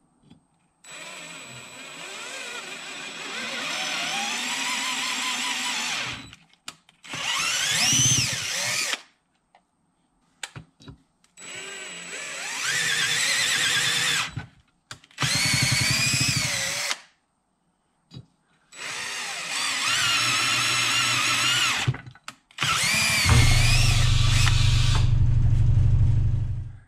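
DeWalt cordless drill drilling into an aluminium engine cover in six separate runs. The motor's pitch climbs and wavers as the trigger is eased in and out. The last run is the longest and loudest.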